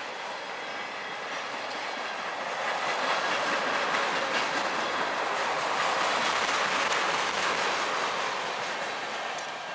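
Freight train of tank cars rolling past close by, its steel wheels clicking over the rail joints. The rolling noise swells about halfway through and eases off near the end.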